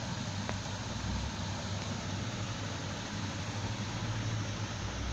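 Steady low machine hum with hiss, as of motors or machinery running, with a small tick about half a second in.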